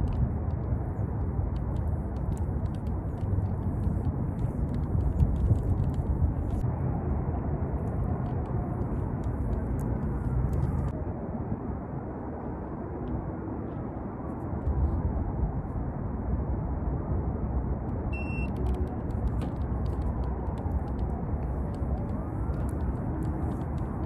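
Steady low outdoor background rumble, easing a little around the middle, with a brief electronic beep about three quarters of the way through.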